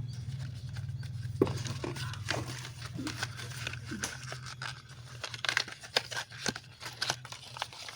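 Packaging being handled during a phone unboxing: plastic crinkling and tearing, with scattered clicks and taps and one sharper click about a second and a half in. A low steady hum sits under the first few seconds and then fades.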